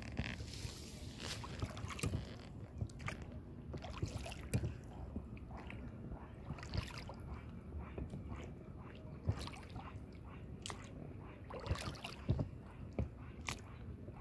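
Water lapping and sloshing against a small rowing boat, with irregular light clicks and knocks.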